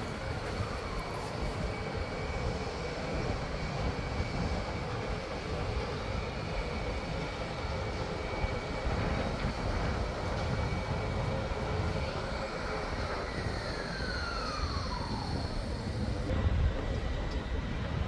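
Steady city traffic rumble with a thin steady high whine over it, and a whine that falls in pitch about two-thirds of the way through, like something passing by.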